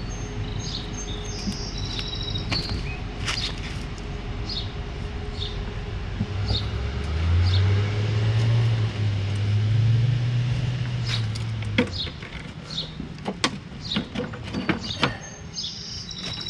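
Metal clicks and clacks of a push mower's wheel-height adjustment lever being worked, coming thickest a few seconds from the end. Birds chirp throughout. A low engine hum swells for several seconds in the middle, and it is the loudest sound.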